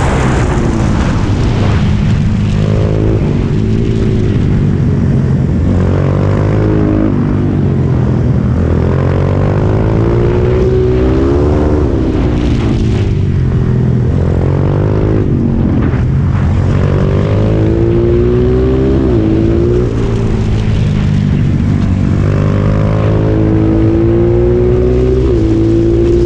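Racing kart engine at full racing pace, close up from on board. Its pitch climbs repeatedly as it accelerates out of the corners and drops sharply each time the throttle is lifted for the next bend.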